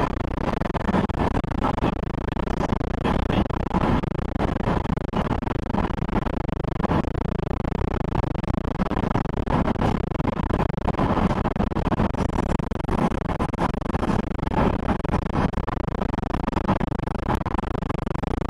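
Steady road and wind noise of a car travelling at highway speed, heard from inside the car.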